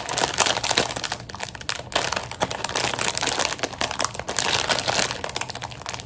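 Clear plastic packaging bag crinkling and crackling unevenly as two hands pull hard at it, trying to tear it open.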